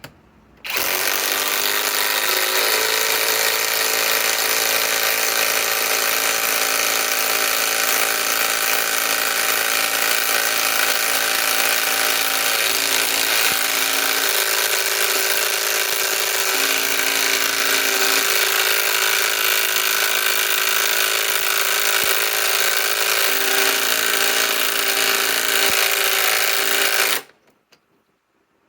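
Kobalt 24-volt right-angle impact wrench running continuously for about 26 seconds as it drives a 6-inch lag screw into an existing hole. Its pitch sags a little in the first couple of seconds, then holds steady before cutting off abruptly near the end.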